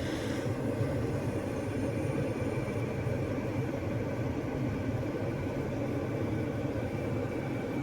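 2022 Jeep Grand Cherokee running at idle with its air conditioning on, a steady hum and rush of air with faint steady high tones. The AC is still making the hissing noise that the owners are trying to cure by recharging the system.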